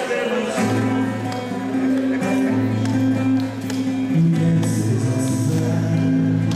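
Acoustic guitar strummed in a live song, with held low bass notes that change about every second.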